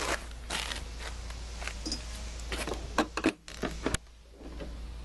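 Garage door opener parts being handled and laid out: scattered light clicks and scrapes, with a cluster of sharp clicks and knocks about three to four seconds in, over a steady low hum.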